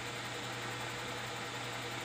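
Metal lathe running steadily with its four-jaw chuck spinning, giving a constant low hum over an even mechanical whir.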